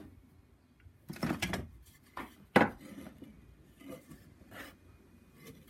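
Pieces of wood stock being handled and knocked about, a scatter of knocks and clatters, the loudest a single sharp knock about two and a half seconds in. The bandsaw is not running.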